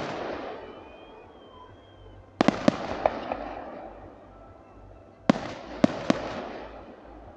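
Aerial firework shells bursting in quick clusters of sharp bangs, one group about two and a half seconds in and another about five seconds in, each followed by a long fading tail.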